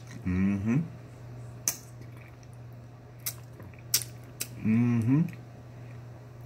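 About four sharp clinks of dishes or utensils, with two brief vocal sounds from the eater near the start and about five seconds in, over a steady low electrical hum.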